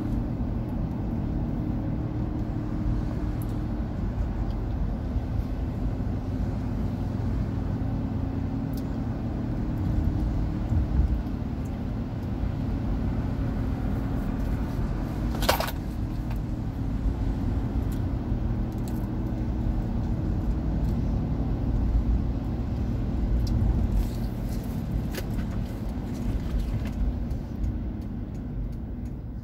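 Engine and road noise of a truck heard from inside the cab while driving on wet pavement, a steady low rumble that eases off near the end as the truck slows. A single short, sharp click sounds about halfway through.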